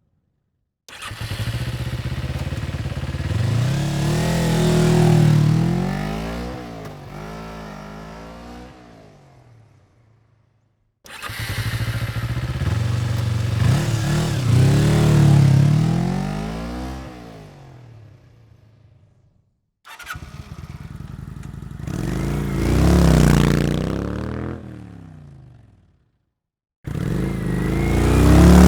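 Motorcycle engine in four separate takes, each cutting in suddenly. In each the engine note rises and falls several times as it grows louder to a peak and then fades away.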